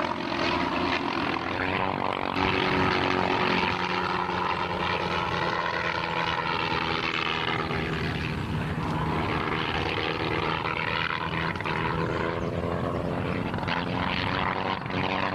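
Propeller airplane engine droning steadily, its pitch swelling and falling as the plane goes through an upside-down loop.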